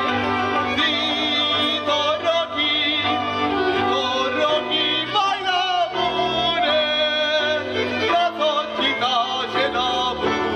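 Men singing a folk song to fiddle accompaniment, with long held notes that waver with vibrato.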